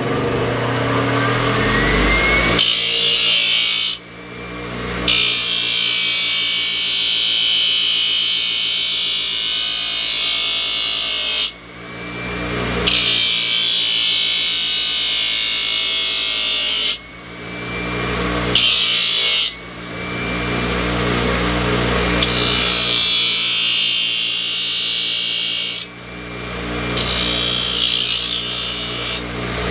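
Handheld power tool working down hoof horn. A motor hums steadily while long grinding passes of several seconds hiss against the hoof, broken about four times by brief lifts off the hoof. Near the start the motor spins up with a rising whine.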